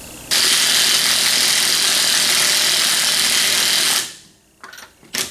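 Power tool running on a seized, cross-threaded wheel lug nut in one steady burst of about four seconds that cuts off sharply, followed by a couple of short blips near the end.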